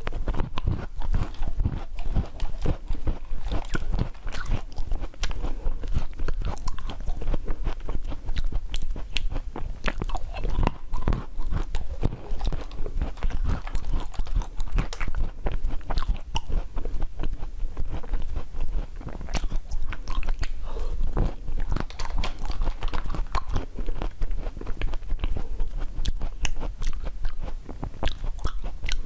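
Close-miked chewing and crunching of frozen blueberries taken from a spoon: a dense, unbroken run of crisp crunches and bites.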